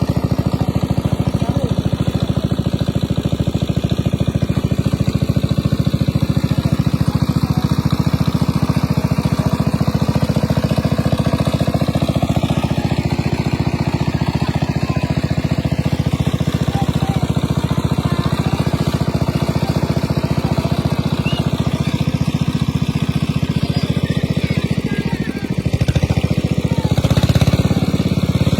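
A small engine running steadily with a fast, even pulse, dipping and then swelling briefly near the end.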